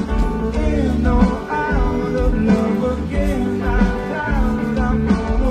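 Background music: a song with a singing voice over a band accompaniment.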